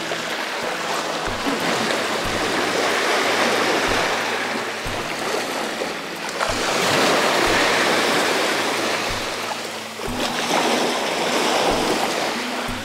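Small waves washing up and draining back over a pebble beach, swelling and fading in three slow surges a few seconds apart.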